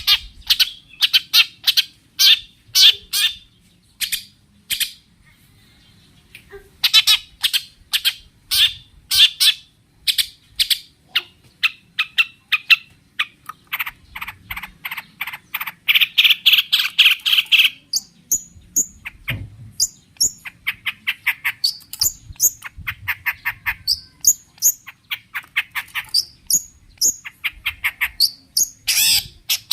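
Long-tailed shrike (cendet) singing in an agitated, aggressive state: rapid strings of harsh, chattering notes, with a dense scratchy run about halfway through and thinner, higher whistled notes in the second half.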